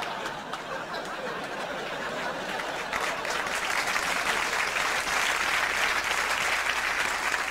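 Studio audience laughing and applauding after a punchline, the applause swelling about three seconds in and then holding steady.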